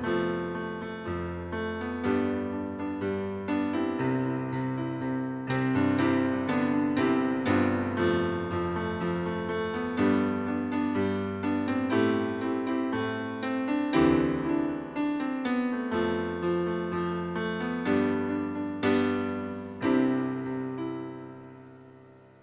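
Keyboard music: a melody of struck notes over sustained chords, fading out over the last couple of seconds.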